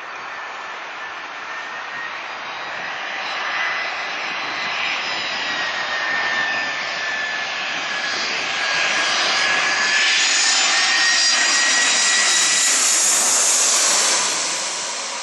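Jet airliner passing low overhead: engine roar with a high whine, building steadily to its loudest in the last few seconds, then falling off sharply near the end.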